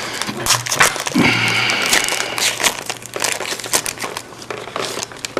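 Trading cards and a pack wrapper being handled, with crinkling and crackling clicks throughout, over music playing in the background.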